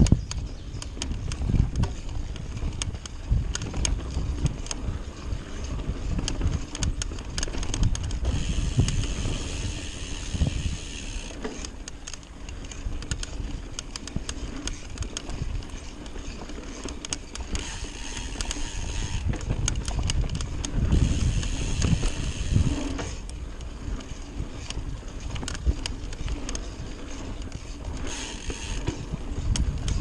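Trek Fuel EX full-suspension mountain bike riding a dirt singletrack: tyres rolling over the dirt with a steady low rumble, and the bike rattling and clattering in many small knocks over bumps. A higher hiss comes and goes several times.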